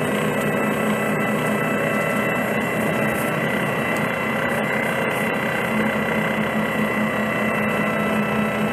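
Cummins C Gas Plus natural-gas engine of a 2006 Orion VII CNG transit bus idling steadily, with steady high tones riding over the engine's low hum.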